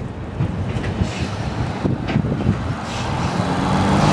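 Road traffic on a bridge, with a heavy truck's engine growing louder near the end as it approaches.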